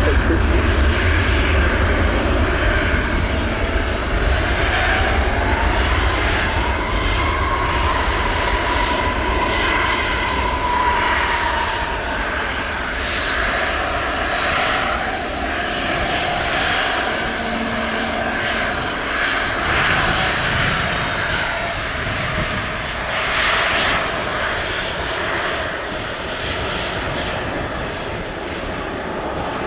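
Airbus A321-231's two IAE V2500 turbofans at takeoff thrust during the takeoff roll: a steady jet engine noise with a whine that rises about six seconds in, slowly fading as the aircraft moves away.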